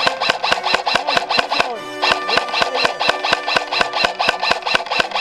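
Airsoft electric rifle (AEG) firing a long stream of rapid shots, about seven a second, with a whining tone under the clicks, pausing briefly a little before two seconds in and stopping at the end.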